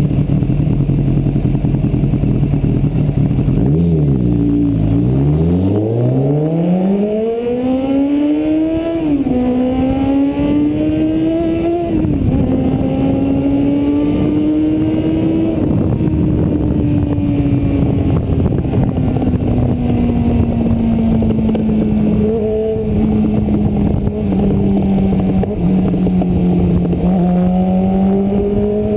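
Sport motorcycle engine heard from the rider's seat: it falls to a low idle about four seconds in, then revs up as it pulls away, with two sharp drops in pitch at gear changes. It then holds a steady cruise that slowly eases off and starts climbing again near the end.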